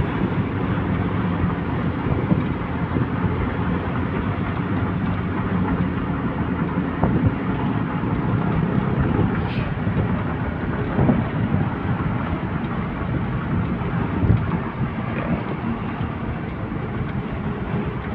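A car's engine running at a steady cruise, with tyre and road noise, heard from inside the cabin while driving. Now and then there is a light knock as the vehicle goes over bumps.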